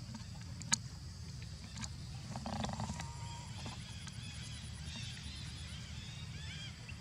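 Bird calls: from about three seconds in, a quick run of short, repeated high chirps over a steady low rumble, after a couple of sharp clicks.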